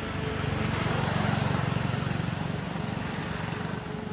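A motor vehicle's engine rumble with hiss in the background, growing louder about a second in and then slowly easing off, as if passing by.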